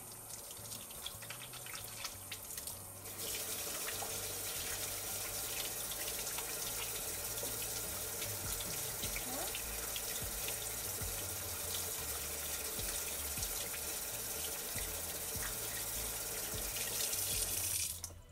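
Kitchen faucet running into a sink during hand washing: a thin trickle while the hands are lathered, getting louder and splashier about three seconds in as the hands are rinsed under the stream. It cuts off suddenly near the end as the tap is turned off.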